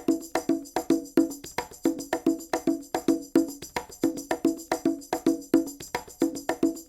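Background music built on a quick, even percussion pattern, about four to five hits a second, with a pitched low part under a steady high part.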